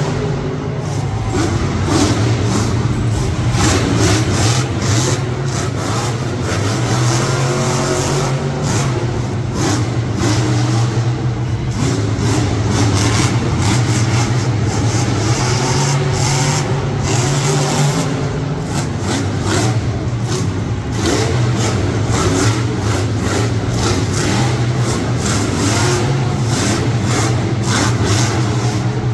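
Monster truck's supercharged V8 engine running loud, revving up and down repeatedly.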